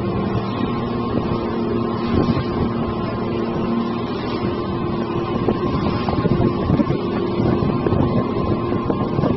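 A boat's motor running steadily with a constant hum, with wind buffeting the microphone.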